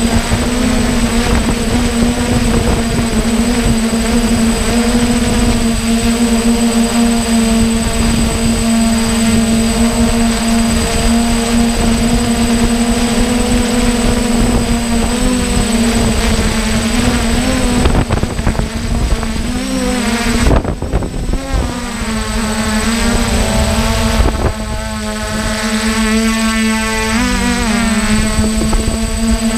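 DJI hexacopter's electric motors and propellers running in flight, heard from on board: a steady pitched whine with a low rumble underneath. The pitch wavers briefly about halfway through, again around two-thirds in, and near the end as the motors change speed.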